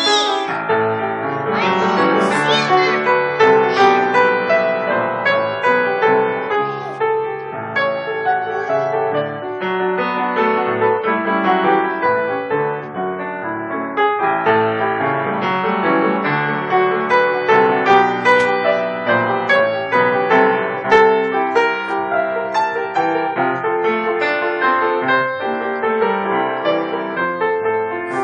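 Upright piano played by hand: a continuous run of notes and chords with no pause.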